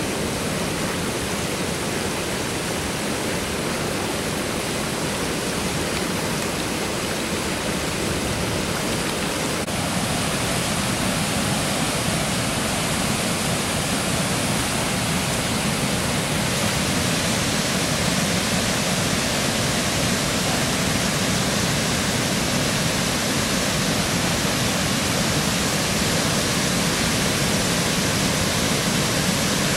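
Floodwater pouring over a mill dam and churning in the whitewater below it: a steady, unbroken rush of falling water.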